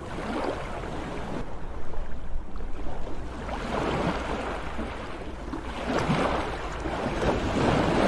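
Sea waves washing onto the shore, swelling and fading in surges a couple of seconds apart.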